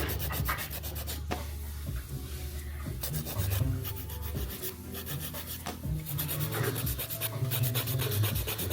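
Fingernails being filed, with repeated rasping strokes, over background music with a low bass line.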